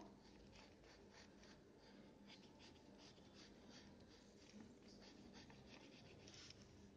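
Red coloured pencil scratching faintly on paper in a quick series of short shading strokes, several a second.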